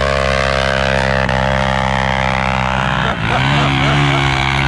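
Dirt bike engine revving up and holding a steady high note, then shifting to a lower, wavering note about three seconds in.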